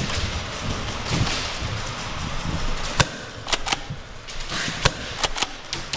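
Airsoft guns firing: sharp single snaps over a noisy background, the first loud one about halfway through, then half a dozen more in quick succession near the end.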